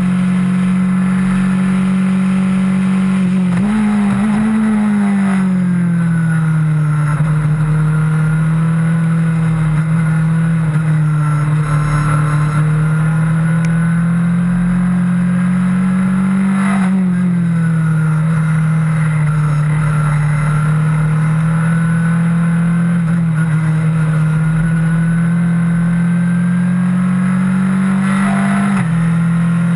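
Onboard sound of a Skip Barber open-wheel race car's four-cylinder engine running hard, its pitch climbing slowly and falling sharply at each gear change: about four seconds in, about halfway through and near the end.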